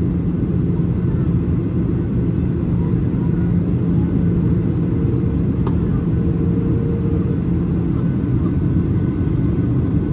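Steady cabin noise of a Boeing 737-800 descending toward landing: the CFM56-7B engines and the airflow past the fuselage give a constant low rumble with a steady hum.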